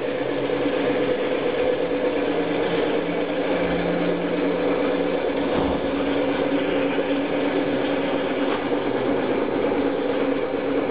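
Homemade permanent-magnet motor-generator running with a steady mechanical hum and whir.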